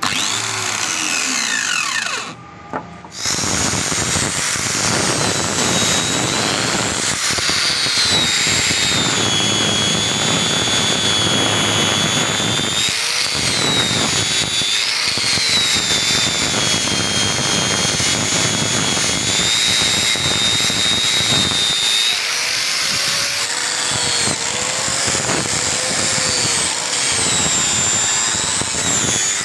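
Angle grinder with a mirror polishing disc running against the steel blade of tin snips, polishing it. The motor's high whine sags and recovers in pitch as the disc is pressed on and eased off, with a short break about two seconds in.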